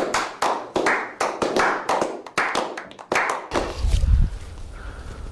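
Several people clapping hands in an uneven rhythm for about three and a half seconds. It cuts off suddenly into outdoor ambience with low rumble on the microphone and a heavy thump.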